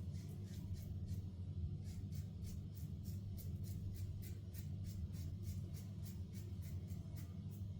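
King C Gillette safety razor with an Astra Green blade scraping through lathered stubble in quick, short strokes, about four or five a second, over a steady low hum.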